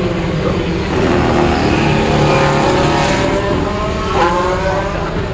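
Race car engine accelerating along the circuit, its pitch climbing steadily, with a sudden break in the pitch about four seconds in.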